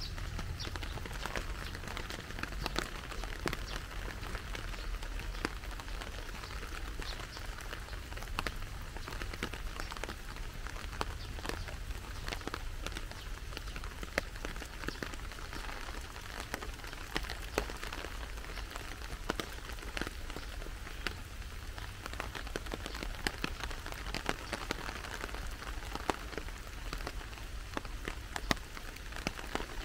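Steady rain falling, an even hiss with many individual drops ticking sharply throughout.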